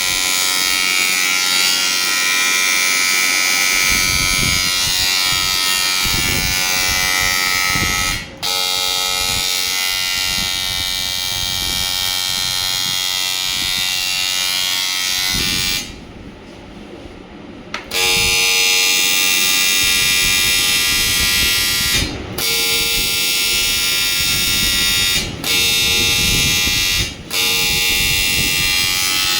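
AC TIG welding arc on aluminium, giving a loud, steady electrical buzz. The arc breaks off briefly a few times and stops for about two seconds just after the middle before striking again.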